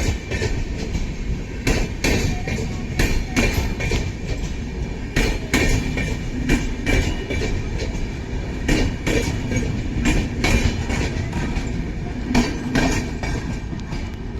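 Express train running on the rails: a steady low rumble with frequent irregular clacks of the wheels over the track.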